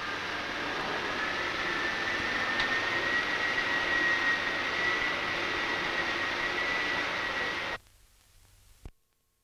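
Four 3,000-horsepower wind-tunnel air compressors running up together: a steady roar with a whine that rises a little in pitch and then holds. The sound cuts off abruptly near the end.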